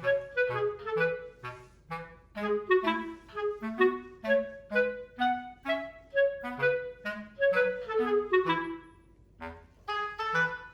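Background music: a quick melody of short, separate notes over a bass line, with a brief pause about nine seconds in.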